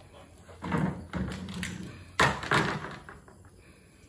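A ball knocked and rolled across paving stones by a dog, with a run of thuds and knocks and a rumble between them. The sharpest knock comes a little past two seconds in.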